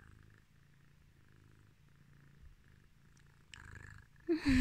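Domestic cat purring steadily and softly close to the microphone while being stroked, a contented purr. A brief rustle comes just before the end, and a louder voice breaks in at the very end.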